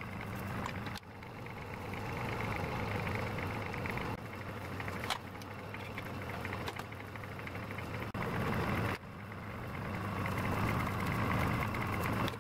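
A metal lathe running steadily while it turns a knurled brass thumb screw held in its chuck. There is a steady motor and gear hum under a rougher cutting noise, and the level dips and rises a few times.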